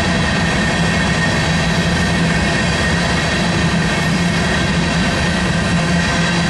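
Loaded coal train's hopper cars rolling past, a continuous steady rumble of steel wheels on rail with a low hum running under it.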